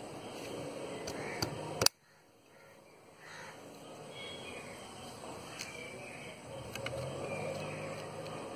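Outdoor background noise with faint bird chirps. A sharp click comes just under two seconds in, and the sound drops away almost to nothing for about a second before the background returns.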